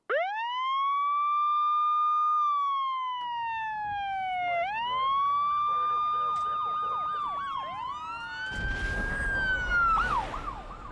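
Emergency-vehicle sirens. One wails up sharply, holds, slowly falls, then rises again about four and a half seconds in, and a second siren joins, cycling much faster. Near the end a rough rushing noise comes in under them.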